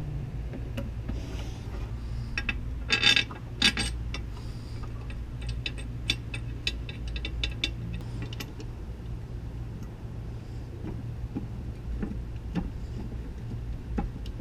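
Metal tools and engine parts clinking and clicking while being handled, with two louder clanks about three seconds in and a quick run of small clicks after, over a steady low hum.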